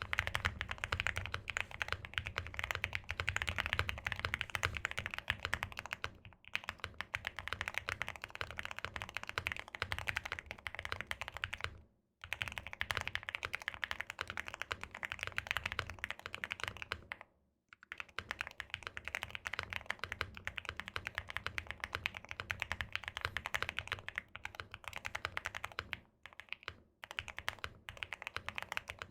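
Fast continuous typing on a custom mechanical keyboard with lubed Everglide Aqua King linear switches on a polycarbonate plate, in a foam-dampened KBDFans Agar case. Brief pauses come about every six seconds.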